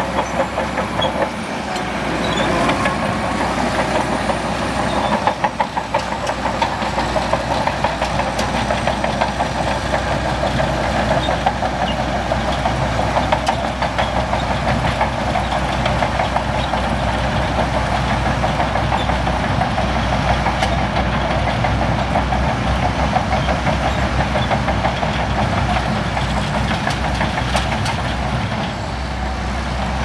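Shantui DH17C2 bulldozer's diesel engine running steadily, with a rapid metallic clatter from its steel tracks as it works in sand.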